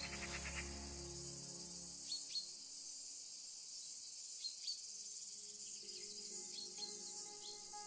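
Steady high-pitched insect chorus, like crickets, with a few brief bird chirps. Soft background music fades out about two seconds in and returns faintly near the end.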